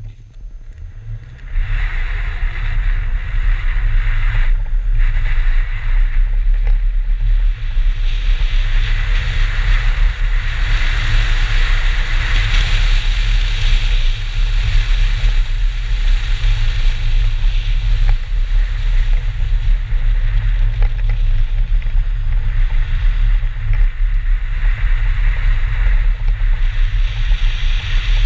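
BMW 320 race car pulling away about a second and a half in and driving hard on a snowy track. From a camera mounted outside the car, heavy wind buffeting on the microphone and the hiss of tyres on snow largely cover the engine.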